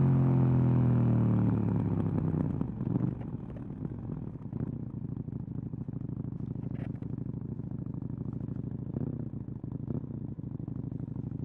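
2018 KTM 790 Duke's 799 cc parallel-twin engine through its stock exhaust, revs falling as the bike rolls off for the first two to three seconds, then settling to a steady, even idle.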